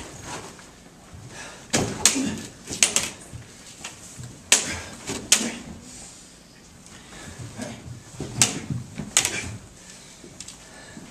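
Illuminated lightsaber blades clashing in a sparring duel: a series of sharp clacks at irregular intervals, some in quick pairs.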